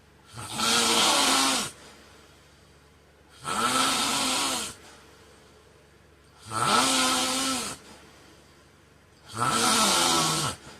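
A man snoring in his sleep: four loud, rasping snores about three seconds apart, each lasting a little over a second, with quiet gaps between.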